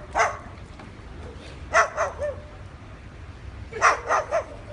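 White cockatoo imitating a dog's bark: one short bark, then two quick runs of three barks.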